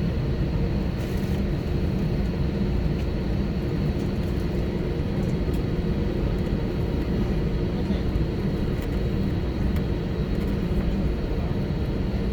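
Steady aircraft noise heard from inside the cabin of an Airbus A321 during pushback and engine start: a low rumble with a thin, steady high whine, unchanging throughout.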